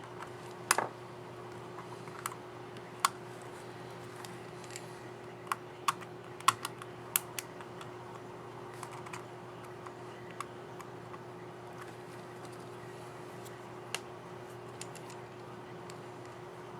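Plastic laptop keys clicking: a keycap being pressed and snapped onto its scissor mechanism on an HP Omen 15-ek keyboard, as sharp, irregular clicks that come thickest in the first half, over a steady low hum.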